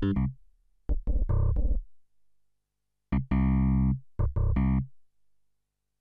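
DinoPark DSP synthesizer running its FMagia FM synthesis engine, played from a keyboard in short phrases. A note dies away at the start, a quick run of notes comes about a second in, and a longer held note around three seconds in is followed by a few short ones, with silent gaps between.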